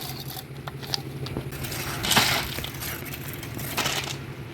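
Scraping and crunching of tools working wet concrete and gravel during road pouring, with two louder scrapes, about two seconds in and near the end, over the steady hum of an engine.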